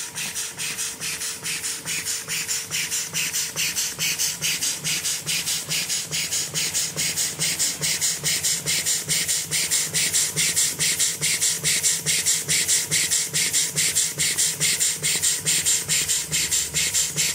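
Model walking beam engine running at a steady speed, its exhaust chuffing evenly about four times a second, getting a little louder in the second half.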